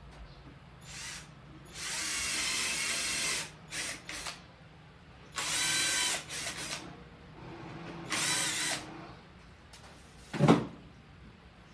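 Power drill driving screws into 3/4-inch marine plywood in three bursts of motor whine, the first and longest lasting about a second and a half. A single sharp knock follows near the end.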